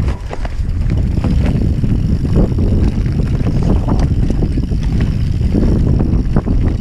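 Banshee Spitfire enduro mountain bike running fast down a rough dirt trail: a steady rumble of tyres and wind buffeting the action camera's microphone, with frequent short clicks and clatters from the bike over the bumps.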